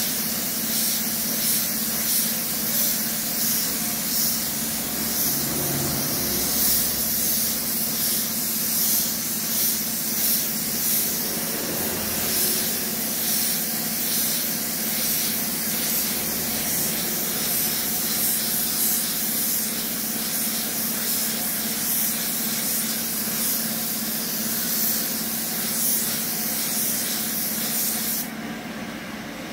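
Compressed-air paint spray gun hissing steadily with a slight rise and fall as it sprays paint onto a car fender for a spot-repair blend. The spraying cuts off suddenly near the end, leaving a steady low hum.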